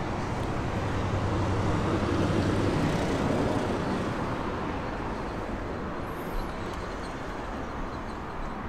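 Steady low vehicle rumble with a hum that eases off a few seconds in.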